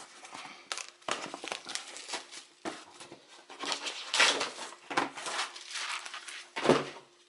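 Plastic packaging crinkling and tearing in irregular rustles as a Fel-Pro head gasket is unwrapped, over a faint steady hum.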